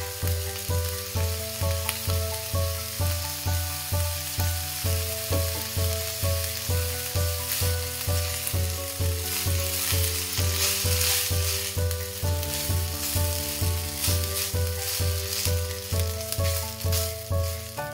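Background music with a steady low beat of about two thumps a second and changing chords, over a continuous hiss of damp rice flour sizzling in a hot non-stick pan as it is stirred and turned with a spatula.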